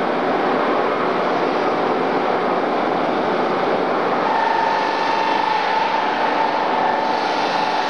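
Automatic valve-polishing machine running, a steady dense machine noise; about halfway through a steady whine comes in and holds.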